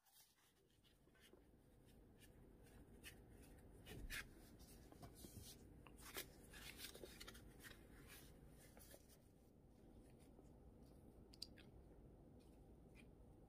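Faint crackling and crunching of gloved fingers working dry corn starch on a plate and pressing raw shrimp into it to coat them. The crackles come thick for the first several seconds, then thin out.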